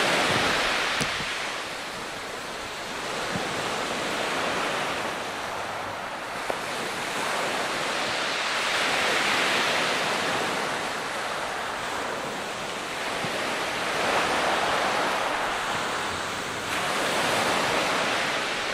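Small North Sea waves breaking and washing up a shingle beach, the surf swelling and fading in slow surges every few seconds.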